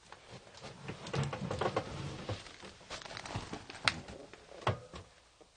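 Rustling and crackling of debris being handled and disturbed: irregular small crackles and taps, with a couple of sharper clicks near the end.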